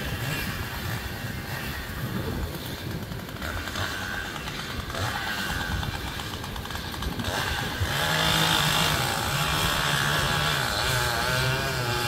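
Distant chainsaw cutting into a white oak trunk during felling. It gets louder about eight seconds in, its pitch wavering as it bogs and recovers in the cut.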